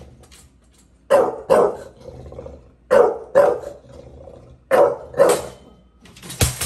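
Bulldog barking at a pet gate: six short barks in three quick pairs. Near the end the gate falls over onto the hardwood floor with a clatter.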